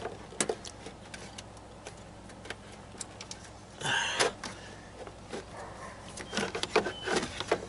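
Plastic cooling-fan shroud assembly of a Chevy Cruze being worked into the engine bay by hand: scattered clicks and knocks of plastic against hoses and brackets, with a louder scrape about four seconds in and a quicker run of clicks near the end.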